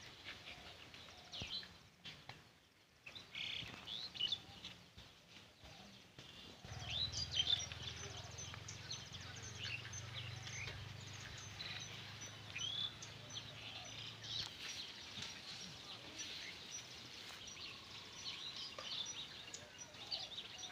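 Outdoor rural ambience with birds chirping and calling, many short high chirps and quick sweeps. A low steady hum comes in about seven seconds in and stops about halfway through.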